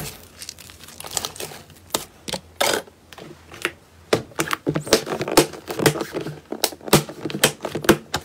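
Soft cloud-type slime being squeezed and pressed by hand in a glass bowl, giving off irregular sharp clicks and pops as air pockets in it burst, several a second.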